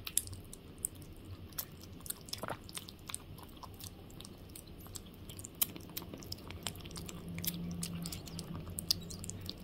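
Three kittens eating together from a glass bowl of kibble softened with hot water: a run of quick, irregular wet clicks from their lapping and chewing.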